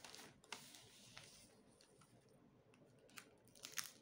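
Faint rustling and crinkling of a plastic courier mailer bag and a cellophane-wrapped sticker sheet being handled, with a few soft ticks.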